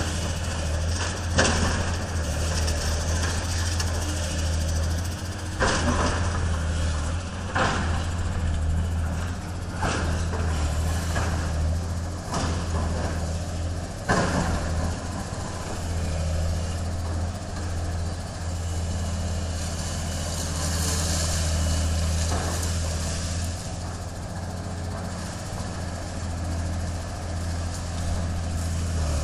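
Tracked hydraulic excavator's diesel engine running steadily, with several sharp crashes and clatters of rubble as it works a pile of demolition debris.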